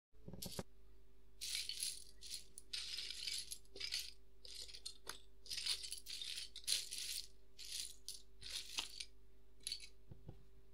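Irregular bursts of rattling, as of something being shaken, over a steady low drone.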